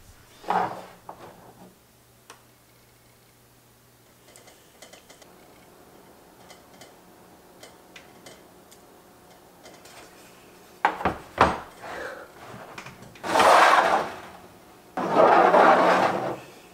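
Tableware handled on a table: a sharp knock about half a second in, scattered light clicks, then two loud scraping rubs of about a second and a half each near the end.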